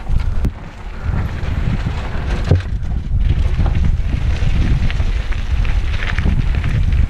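Wind buffeting a mountain bike's handlebar-mounted camera microphone as the bike descends fast over asphalt and gravel, with a steady low rumble from the tyres and many short clicks and rattles from the bike over bumps.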